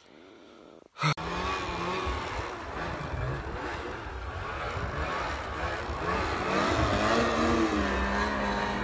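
Snowmobile engines revving up and down under load as the sleds climb a steep, deep-snow slope, starting about a second in.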